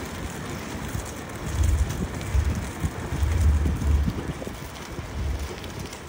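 Wind buffeting the microphone in uneven low rumbling gusts, over a steady outdoor hiss.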